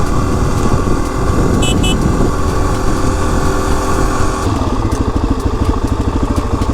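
Suzuki DR-Z400 single-cylinder four-stroke engine running while riding, then dropping about two-thirds of the way through to a slow, even idle thump as the bike slows. Two short high beeps sound about a second and a half in.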